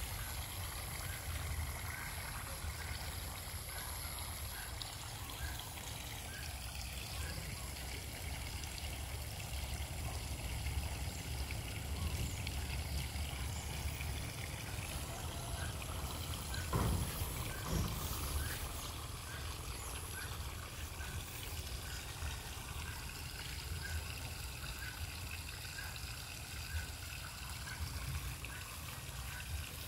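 Steady trickling water at a catfish fry pond, over a low rumble.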